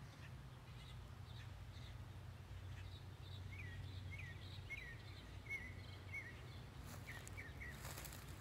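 A bird chirping: a quick series of short, high chirps in the middle, over a steady low background hum. A few soft footsteps on grass near the end.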